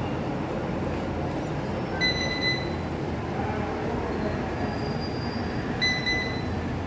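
Electronic beeps from the Robot Baker machine's touch control panel as its buttons are pressed: one beep about two seconds in and a quick double beep near the end, over a steady low rumble.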